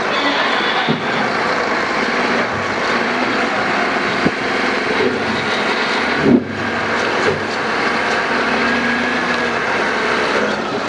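Heavy diesel machinery running steadily, with a sharp knock about four seconds in and a louder bang a little past six seconds.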